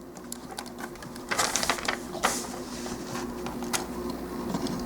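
Plastic parts of a High Grade Gundam GP01 model kit being handled and fitted together: scattered light clicks and a short stretch of plastic scraping about a second and a half in, as a knee part is worked onto its ball joint. A faint steady hum runs underneath.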